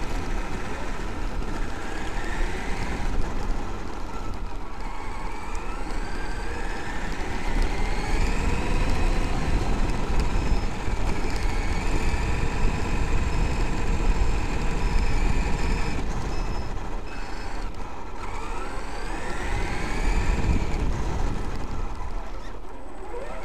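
Traxxas X-Maxx RC monster truck's brushless electric motor and drivetrain whining, heard from a camera mounted on the truck. The whine climbs in pitch as it speeds up, three times, and holds steady in between, over a rough rumble of tyres on gravel.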